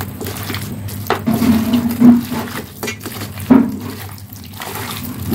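A hand squishing and mixing oily, spice-coated chicken pieces in a stainless steel bowl: irregular wet squelching and sloshing.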